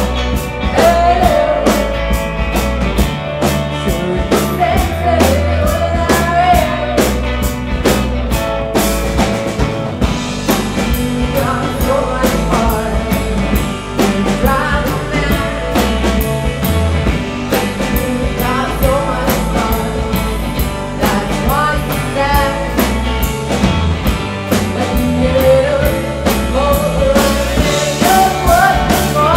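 Live rock band playing loudly: electric guitars and a drum kit keeping a steady fast beat, with a woman singing lead.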